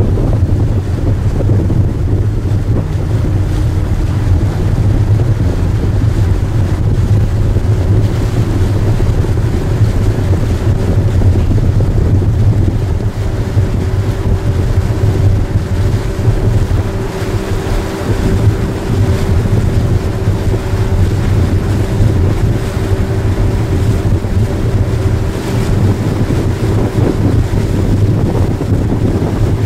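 Tour boat's engine running steadily under way, with wind buffeting the microphone. A steady hum joins in about halfway through.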